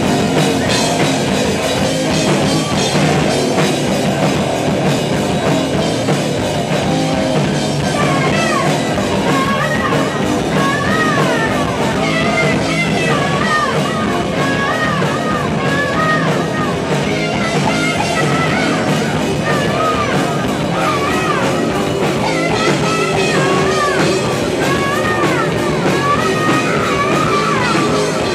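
Live rock band playing with electric guitars and a drum kit; a woman's singing voice comes in about eight seconds in and carries the melody over the band.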